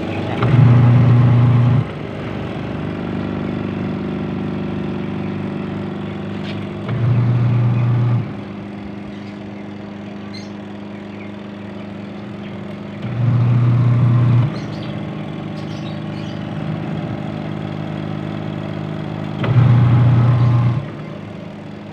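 Twin tub washing machine running with a new spin motor fitted: a steady electric hum, with a louder low motor hum coming on for about a second and a half roughly every six seconds.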